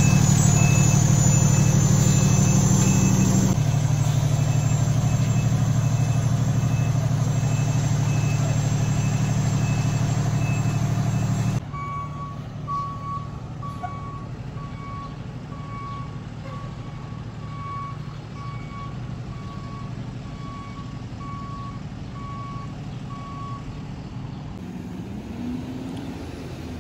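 Fire truck's diesel engine running close by, with a high electronic beep repeating steadily. About twelve seconds in, the engine rumble drops away and a lower-pitched beep goes on about twice a second until near the end, over quieter street noise.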